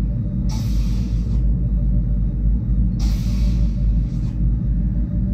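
Starship sliding-door sound effect from Star Trek: The Next Generation, heard through a TV speaker: a hissing swoosh about half a second in as the doors open, and another about three seconds in as they close. A steady low rumble runs underneath.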